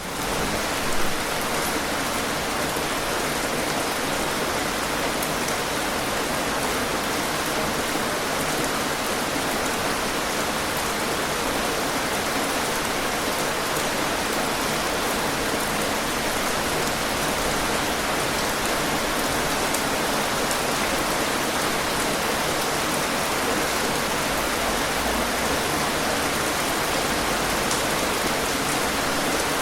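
Steady rain falling, an even hiss of rain with scattered individual drop ticks. There is one brief louder moment about a second in.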